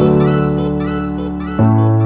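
Background music: sustained chords with a light melody over them, the chord changing about one and a half seconds in.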